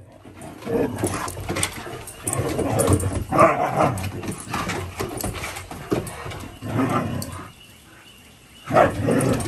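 Two huskies play-fighting, growling and letting out higher yowls in irregular bursts, with claws clicking on wooden porch boards. There is a short lull about eight seconds in, then a loud yowl.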